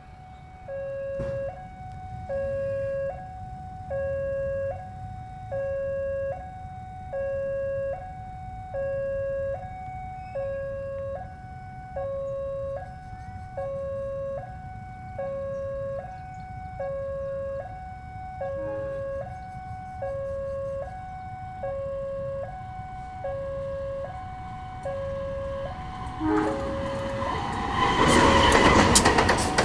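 Railway level-crossing warning alarm sounding a steady two-tone electronic signal that alternates between a higher and a lower pitch about once a second. Near the end, a KAI CC201 diesel-electric locomotive comes past loudly with its train.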